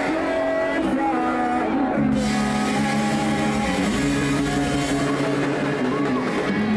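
Live rock band playing through a PA, with electric guitar.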